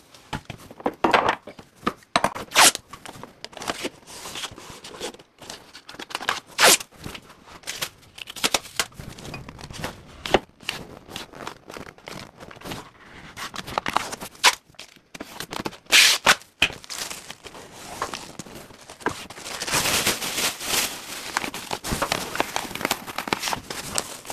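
Painter's tape ripped off the roll and torn, with plastic masking film crinkling as it is spread and pressed over a cabinet opening: irregular sharp rips and rustles, busier near the end.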